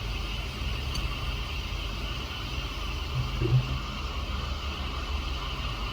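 Steady low hum with a hiss above it, like a small motor or fan running, with a brief low sound about three and a half seconds in.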